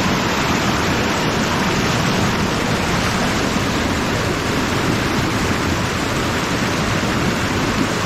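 Mountain stream rushing over rocks and small falls: a loud, steady rush of water.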